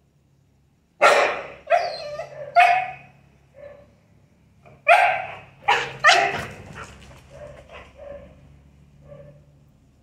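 A small black-and-white dog barking: three loud barks about a second in, then three more about five seconds in, with quieter short barks in between and toward the end.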